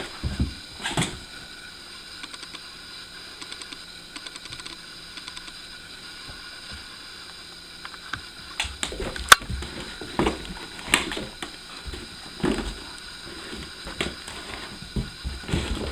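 Scattered knocks, scrapes and thumps of a Labrador puppy playing with a ball while wearing a plastic cone collar that bumps the floor and furniture. It is quieter for the first half, then the knocks come thicker, the sharpest a little past halfway.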